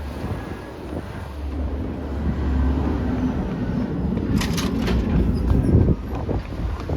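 Garbage truck's diesel engine running with a steady low rumble, gusts of wind buffeting the microphone, and a brief sharp clatter about four and a half seconds in.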